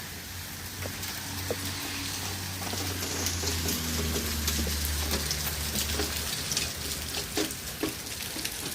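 Heavy thunderstorm rain falling hard, a dense hiss with drops crackling close to the microphone. A low hum underneath swells toward the middle and stops about six seconds in.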